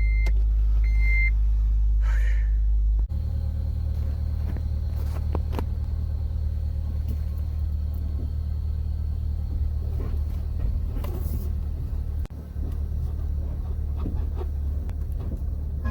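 Honda Element running with a steady low rumble, a warning chime beeping a few times in the first second or so. About three seconds in the sound changes and scattered knocks and rattles come through as the car moves over rough ground.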